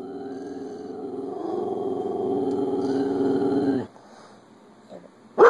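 Dog growling at a television she treats as a threat: one long, rough growl that builds in loudness and breaks off suddenly about four seconds in. It is followed near the end by a single short, sharp bark, the loudest sound.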